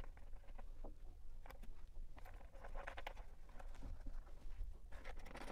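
Small clicks, taps and scrapes of hands threading and turning a nut on a panel connector and handling a hard plastic toolbox panel, in short irregular bursts, busiest around the middle and near the end, over a low steady hum.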